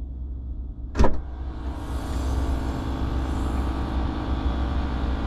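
A car's rear liftgate unlatching with one sharp click about a second in, then swinging up by hand, letting in steady outdoor noise with a low rumble.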